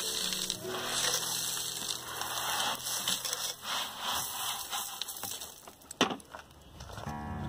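Coarse sand poured from a plastic bucket into a concrete ring pit, a steady hiss of falling grains that fades out about five seconds in. A single sharp knock about six seconds in.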